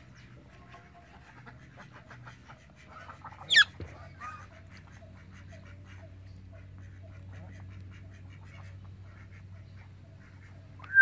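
Parrots squawking and eating: one loud, short, shrill squawk sweeping sharply up in pitch a little over a third of the way in and another at the very end, with a few faint short calls and light clicking of a blue-and-gold macaw's beak biting into an eggplant between them.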